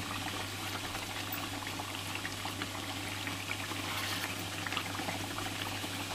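Mutton karahi gravy bubbling as it simmers in a pot, stirred with a metal ladle: a steady hiss with many small pops.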